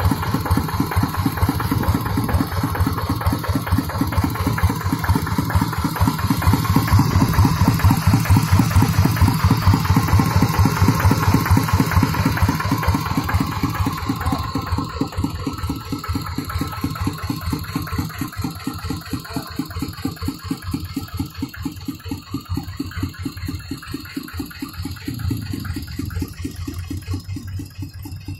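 Kubota RD85DI single-cylinder diesel engine running steadily with an even beat of firing pulses, growing gradually quieter over the second half.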